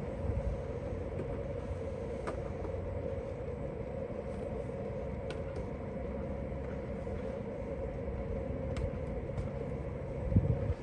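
Steady low rumble of outdoor background noise, with a few faint clicks and a brief louder low thump near the end.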